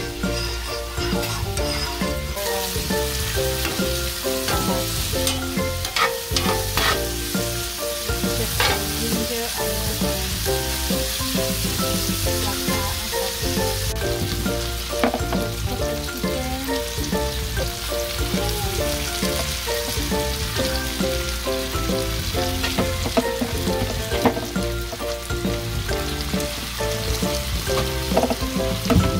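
Chicken thighs and legs sizzling with onions and bell peppers in a cast-iron skillet, with a few sharp clicks of metal tongs against the pan. Background music plays underneath.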